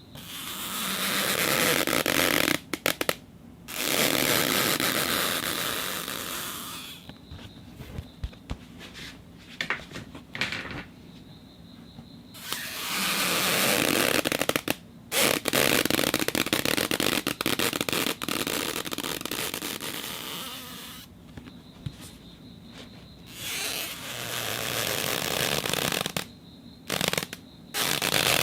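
Acrylic rubbed with friction in long scraping strokes, each a few seconds long. There are about six or seven strokes, separated by short pauses filled with small crackling clicks.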